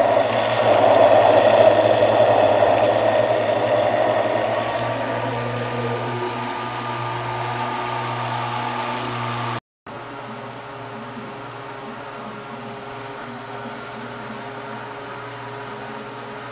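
Electric blender motor running steadily, its loudness easing over the first few seconds. After a brief cut near the middle, a quieter steady motor hum continues.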